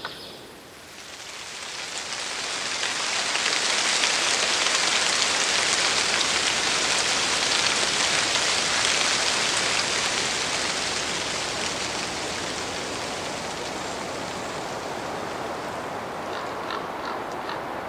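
Forest ambience: an even rushing noise that swells in over about three seconds, holds, then eases off slowly. A few faint chirps come near the end.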